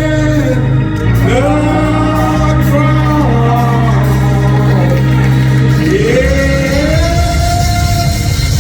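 Men's choir singing a slow gospel hymn in long, drawn-out phrases, with voices sliding up into each held note, over an accompaniment of sustained low bass notes.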